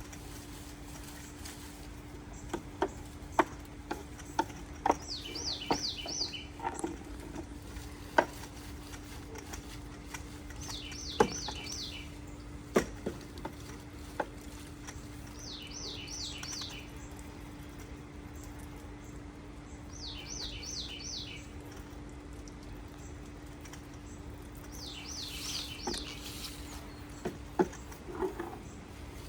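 A bird repeating a short phrase of four or five quick high chirps about every five seconds, over a steady low hum, with scattered sharp clicks.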